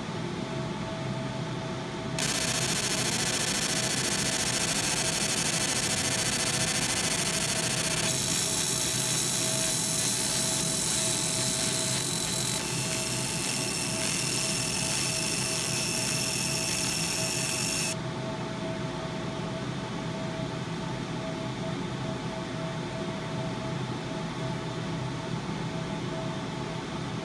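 A machine running steadily with a loud hiss and a high whine, switched on about two seconds in and cut off suddenly about sixteen seconds later, over a steady low hum.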